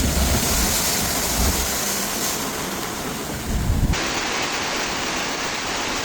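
Heavy storm rain, a loud steady rushing hiss, with a low rumble underneath in the first part. About four seconds in the sound changes abruptly to a different, even hiss.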